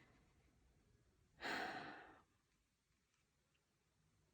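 A single soft, breathy sigh about a second and a half in, lasting under a second; otherwise near silence.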